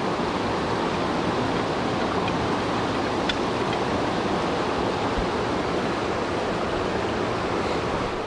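A small mountain creek rushing over boulders and a little cascade: a steady, even rush of water.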